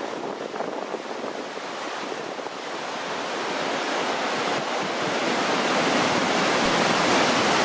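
Njupeskär waterfall in heavy flow: a steady rush of falling water that grows louder about halfway through.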